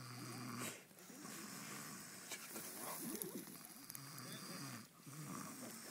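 A man snoring in his sleep, several rough snores in a row.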